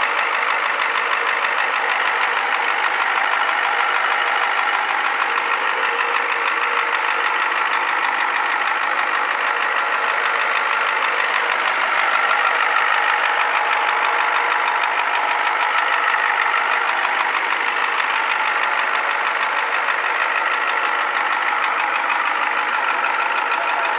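Turbocharged 7.3 IDI diesel V8 of a 1994 Ford F-350 running steadily at idle with a rapid, even diesel clatter, the knocking that the owner questions.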